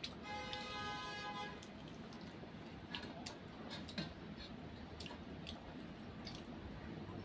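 Close-up mouth sounds of eating instant noodles and drinking: a drawn-out slurp in the first second and a half, then chewing with a few light clicks, such as a fork on a steel plate.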